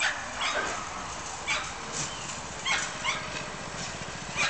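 Dogs yelping and barking in short, high calls, about one every half second to a second, each call dropping in pitch.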